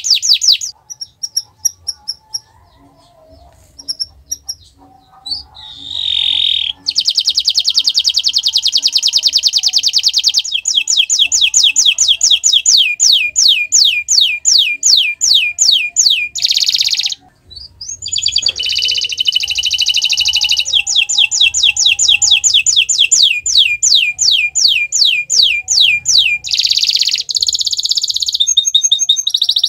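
Domestic canary singing: long rolling trills and runs of rapid, repeated falling notes. Near the start the song pauses for a few seconds, leaving only scattered chirps, and it breaks off briefly about halfway through.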